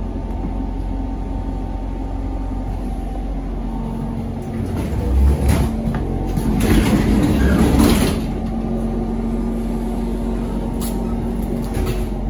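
ZiU-682 trolleybus heard from inside the passenger cabin: a steady electric hum over a low running rumble, with a short louder bump about five seconds in and a louder rushing noise lasting about a second and a half around seven seconds in.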